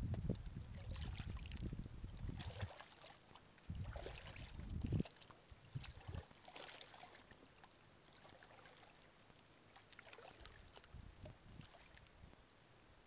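Wading steps splashing and sloshing through shallow seawater over a reef flat. There are heavy low rumbling bursts in the first few seconds and again around the fourth and fifth seconds, then lighter, scattered splashes.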